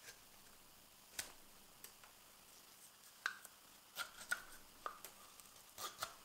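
Morakniv 106 carving knife slicing shavings from a fresh maple spoon handle: a string of short, crisp cuts at irregular intervals, coming closer together in the second half.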